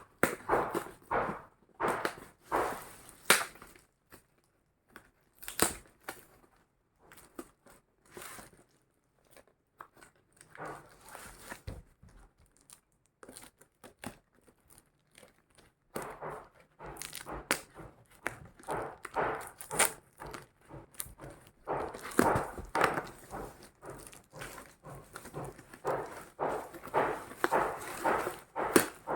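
Packaging being handled during an unboxing: irregular rustling and crinkling, with scattered taps and knocks, busier in the second half.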